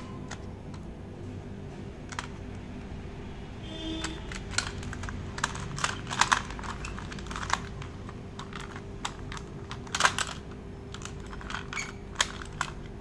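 Red plastic transforming toy car being worked open by hand into its robot form: irregular sharp plastic clicks and snaps, some in quick clusters, the loudest around the middle and again about two-thirds of the way through.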